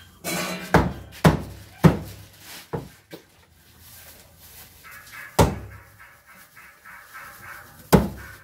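A large knife chopping pork on a wooden chopping board: six heavy chops at uneven intervals. Four come in quick succession in the first three seconds, then two more a few seconds apart.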